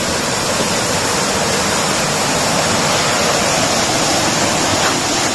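Amrutha Falls, a waterfall, rushing steadily and loudly, an even sound of falling water with no break.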